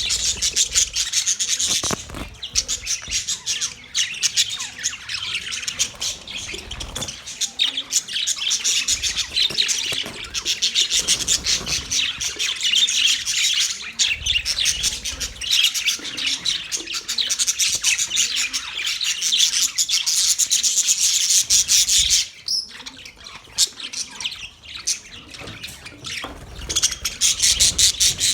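Budgerigars chattering and chirping in a rapid, continuous warble, dipping into a quieter spell a little over three quarters of the way in, then picking up again near the end.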